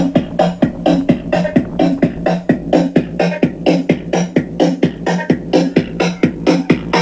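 Electronic dance music with a fast, steady beat, about four beats a second, played through a Honda Wave 110i motorcycle's added audio system.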